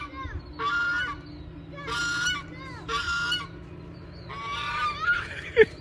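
White domestic goose honking repeatedly as children chase it: a series of loud honks about a second apart, with short quieter calls between them.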